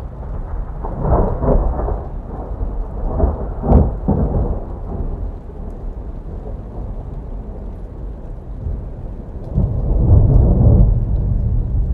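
Rolling thunder over steady rain, with heavy rumbles swelling about a second in, near four seconds, and again around ten seconds.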